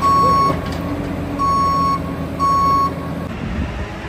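Backup travel alarm on a Bobcat mini excavator beeping three times, about once a second, as the machine moves on the trailer deck, over the steady running of its engine.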